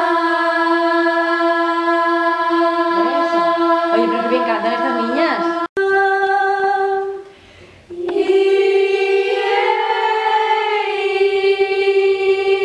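A group of girls' voices singing together on one long held note as a vocal warm-up, with some voices sliding up and down around it partway through. It breaks off abruptly about halfway, and a new held note starts about two seconds later and carries on to the end.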